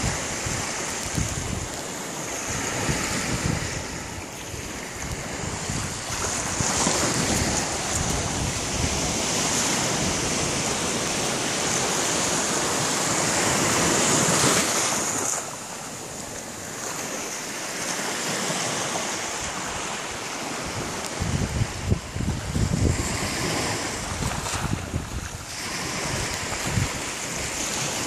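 Wind rushing and buffeting the microphone, a continuous noise that swells and eases, dipping about halfway through, with low rumbling gusts later on.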